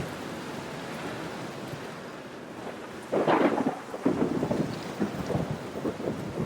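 Light rain on a window pane, a steady patter at first. About three seconds in it swells into a louder rush, followed by irregular heavier drops knocking on the glass.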